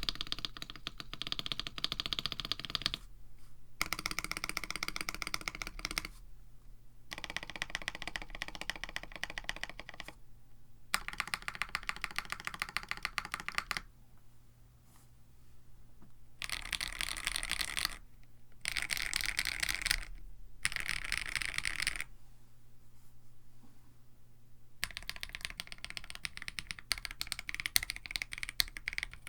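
Typing on a KBD67 Lite mechanical keyboard with lubed AKKO Radiant Red linear switches on an FR4 plate: fast runs of keystrokes a few seconds long, broken by short pauses.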